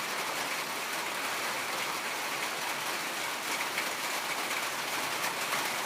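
A steady, even hiss of background noise with faint scattered ticks.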